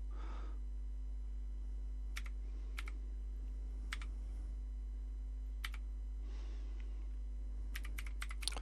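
Commodore VIC-20 keyboard being typed on: a few single keystrokes spaced about a second apart, then a quick run of several keys near the end. A steady low electrical hum runs underneath.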